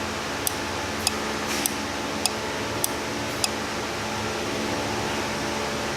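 Automotive auto shutdown relay clicking on and off about every 0.6 s as a relay tester cycles it, the clicks stopping about three and a half seconds in. A steady hum runs underneath.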